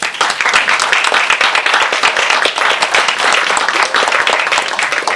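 Audience applauding, a dense run of hand claps that holds steady and fades near the end.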